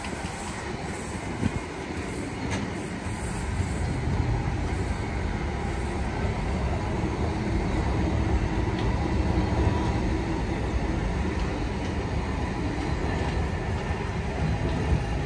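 Container flat wagons of a long intermodal freight train rolling past on the rails: a steady low rolling noise of steel wheels on track, with a few light clicks.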